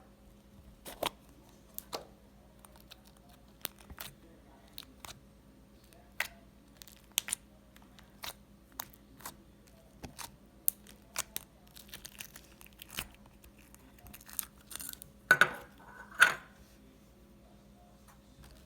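Crunchy slime with fruit chips mixed in, being squeezed and worked by hand: scattered sharp crackles and clicks, a denser patch of crunching about twelve seconds in, and two loud crunches near the end.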